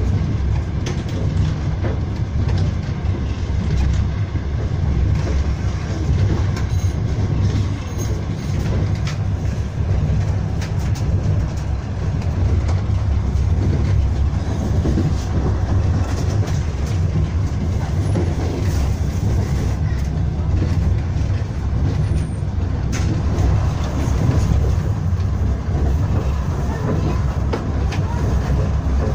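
Steady low rumble of a moving passenger train, heard from inside the carriage as the wheels run along the rails.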